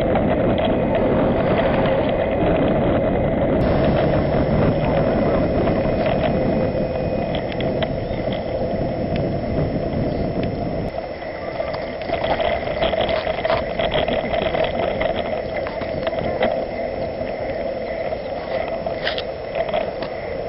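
Wind rushing over an action camera's microphone and tyres humming on asphalt as a road bicycle rides along, with scattered clicks and rattles from the bike. The low wind rumble eases about halfway through.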